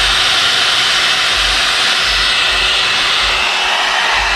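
A 1,000-watt ONE STEP hot-air brush hair dryer running steadily, its fan blowing with an even rushing sound. It is stuck on and will not switch off.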